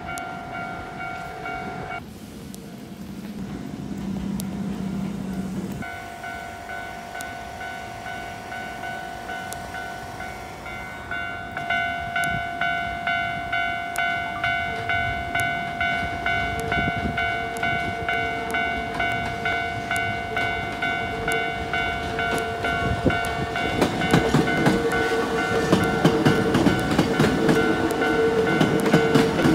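Japanese level-crossing warning bell ringing with a steady repeating clang, louder from about twelve seconds in. A Hankyu electric train approaches and, from about twenty-four seconds in, rolls over the crossing with wheels clattering on the rail joints.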